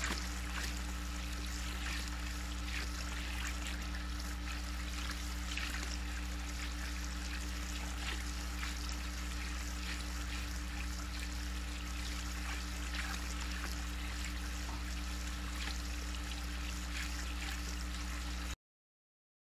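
Steady trickle of water from the pool and spa over a low electrical hum, with faint scattered ticks. The sound cuts off suddenly near the end.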